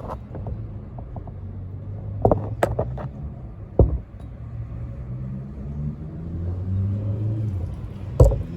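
Car engine running steadily, its pitch rising a little about two-thirds of the way through, with several sharp metallic knocks over it.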